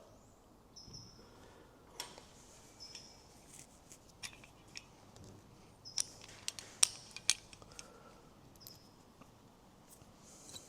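Faint scattered clicks and light metallic taps of small bolt-on hardware, a bonnet clamp with its bolts and washers, being handled and fitted by hand, with a cluster of sharper clicks about six to seven seconds in.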